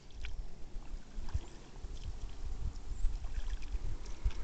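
Wind buffeting the microphone: an uneven low rumble in gusts, with a few faint ticks.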